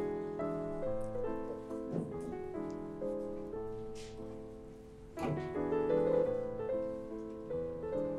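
Background piano music, a slow instrumental with notes held and changing about every half second.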